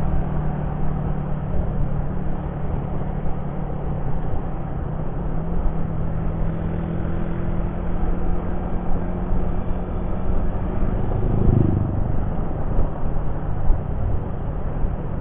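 Yamaha Jupiter MX motorcycle's single-cylinder engine running steadily under way, with a constant low rumble. Its note steps up a little about five seconds in and drops away sharply near twelve seconds.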